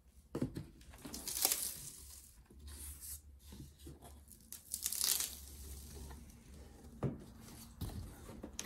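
Large cardboard box being opened by hand: flaps pulled apart and folded back, cardboard sliding and scraping. Two louder rips come about a second and a half in and around five seconds in.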